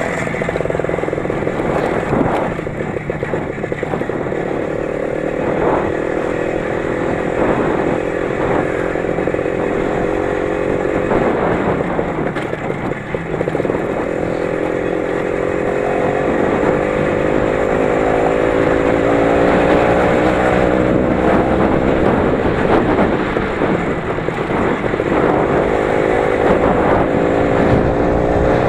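The 20-horsepower engine of a Lider 3.221 running under load off-road, its pitch wavering and then rising steadily over the last dozen seconds, with a few short knocks along the way.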